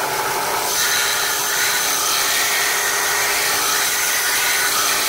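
Belt sander running steadily while a small wooden piece is pressed against the belt and ground down.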